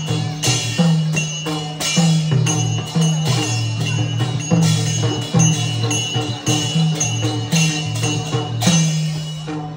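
Traditional drum-and-cymbal music accompanying the dog dance: pitched drum strokes in a steady beat of about two a second, with small cymbals ringing over them.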